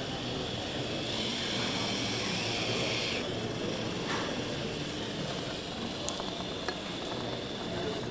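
Small competition robot's electric drive motors whining as it drives over artificial turf, the whine growing louder and broader for about two seconds after the start, over steady background noise, with a couple of faint ticks near the end.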